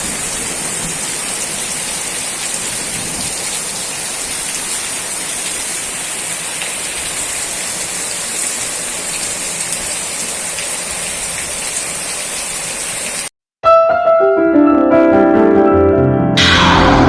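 Steady heavy rain falling. About thirteen seconds in it cuts off abruptly, and music starts with piano-like notes, swelling louder near the end.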